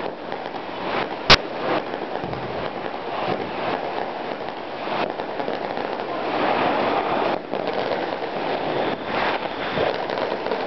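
Fireworks and firecrackers going off all around in a dense, continuous crackle, with one sharp, loud bang about a second in.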